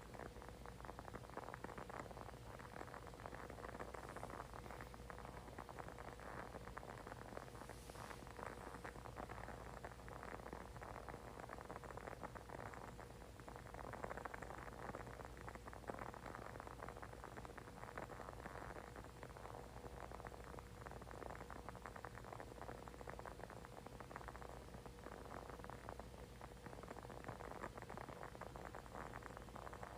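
Faint, continuous fine crackling of a burning candle, over a low steady hum.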